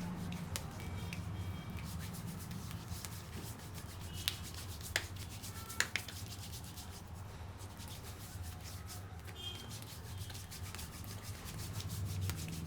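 Rubbing against a surface over a low steady hum, with a few sharp clicks near the middle.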